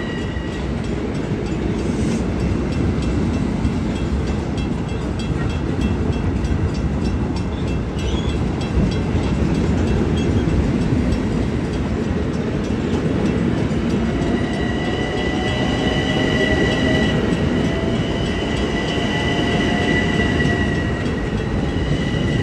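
Long Island Rail Road train running past close by, with a steady heavy rumble of wheels on rail. High-pitched whines fade out just after the start and return about two-thirds of the way through.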